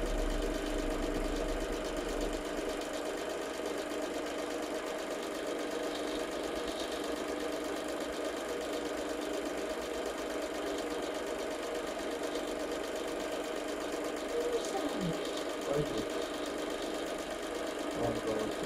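Cine film projector running steadily, a continuous mechanical whirr of the film transport and motor.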